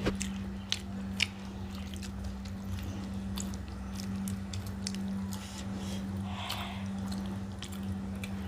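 People eating rice and egg curry by hand, with wet chewing, mouth smacks and scattered short clicks over a steady low hum.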